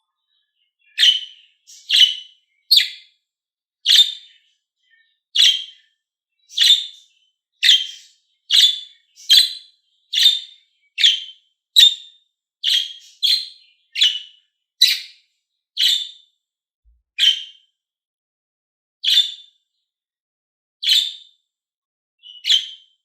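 Budgerigar chirping in short, separate calls, about one a second at first and spacing out toward the end.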